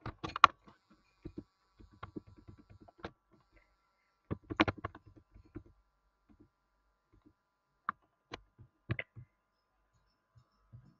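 Scattered clicks and light knocks against a quiet background, in two small clusters about half a second in and around four and a half seconds, with a few single ticks later.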